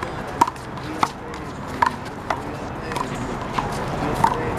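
Rubber handball (big blue ball) being struck by hands and smacking off the wall and court in a rally: a string of about seven sharp pops, roughly one every half to three-quarters of a second.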